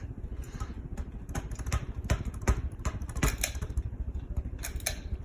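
SMC Park Avenue III ceiling fan running, its draught buffeting the microphone with a low, fluttering rumble, with irregular sharp clicks and knocks over it.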